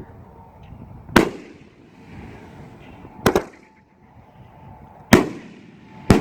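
Alien Fireworks 'For Honor' 9-shot 500-gram fireworks cake firing its shells: four sharp bangs about two seconds apart, the second a quick double, each trailing off in a short echo.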